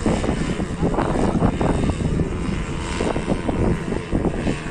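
Paramotor engine and propeller running steadily at power, with wind buffeting the microphone.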